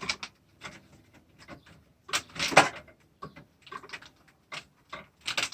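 Snips cutting through cable ties, with scattered sharp clicks and knocks. A longer scraping rustle comes about two seconds in.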